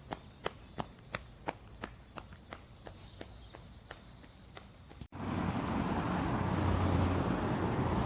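Cicadas singing in a steady, high-pitched drone, with footsteps about three a second over the first five seconds. After a sudden cut about five seconds in, a louder low rumbling noise sits under the cicadas.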